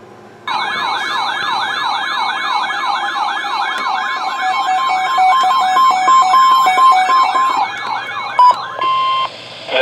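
Electronic siren-style alert tone warbling rapidly up and down, about three sweeps a second, with short steady beeps layered over it. It gives way near the end to a brief steady tone.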